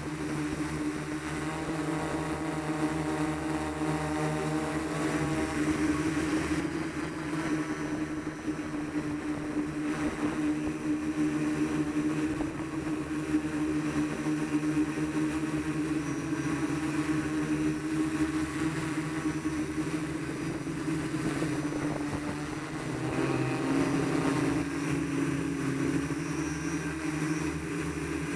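Steady hum of a camera drone's motors and propellers in flight, heard from on board, with the pitch shifting slightly about 23 seconds in as the drone changes its flight.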